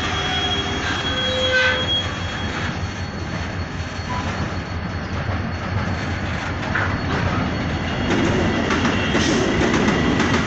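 Freight train wagons rolling slowly with a steady rumble, their wheels squealing against the rails in thin high tones.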